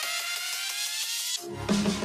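Background electronic dance music: a rising synth sweep that cuts off suddenly about one and a half seconds in, followed by a drop with a deep bass line and drums.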